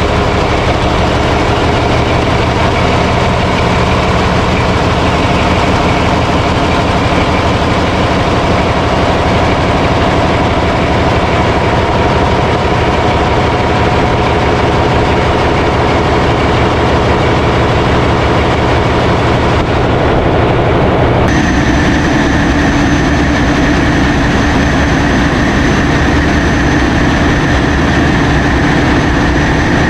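Large marine diesel engines running in a ferry's engine room: a loud, steady, dense machinery drone. About two-thirds of the way through, the sound changes abruptly and a steady high whine comes in over the drone.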